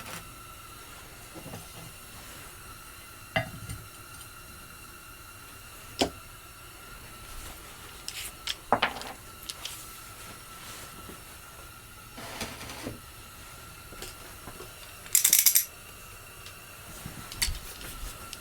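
Scattered metal clanks and knocks of tools and equipment being handled while a cutting setup is readied, with one short, loud hiss about fifteen seconds in.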